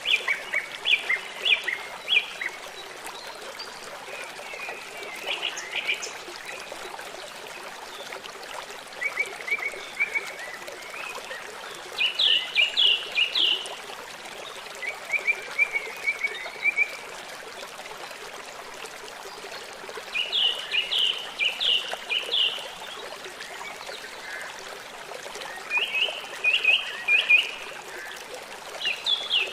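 A bird singing short phrases of four or five quick, high chirps, repeated every few seconds, over the steady rush of a stream.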